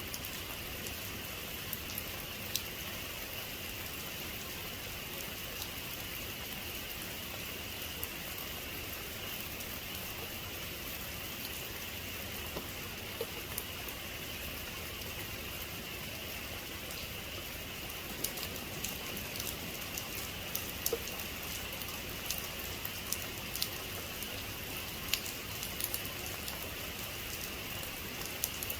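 Heavy rain falling steadily, with sharp drop impacts pattering on a surface, more of them in the second half. No thunder.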